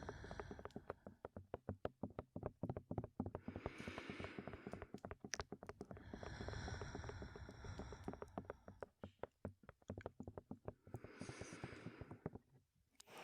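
Fingertips tapping rapidly and unevenly on a microphone, many close taps a second, with three heavy, breathy exhales blown close into the microphone in between.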